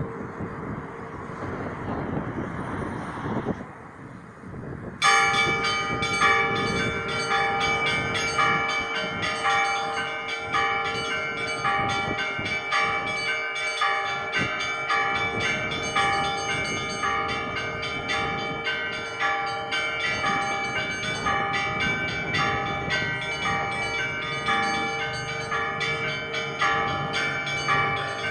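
Church bells ringing a full peal. After a quieter stretch of hiss with the bells' hum hanging in the air, many bells come in at once about five seconds in. The small bells are struck in a quick repeating pattern over the steady ring of the larger bells.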